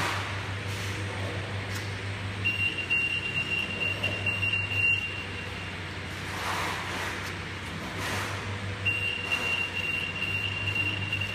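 REHOO NDC-A-300MM conveyor needle detector sounding its alarm: a steady high beep lasting about three and a half seconds, then a second one near the end, signalling metal detected in the test piece passing through the tunnel. A steady hum of the conveyor belt motor runs underneath.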